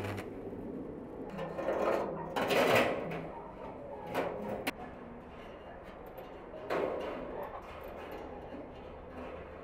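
Wire-mesh cage clattering and scraping against the steel barrel as it is handled and fitted in place: a handful of short rattling bursts, the loudest about three seconds in.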